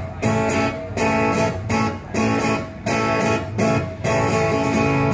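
Instrumental interlude of a Chinese pop song, led by strummed guitar with a steady beat, no singing.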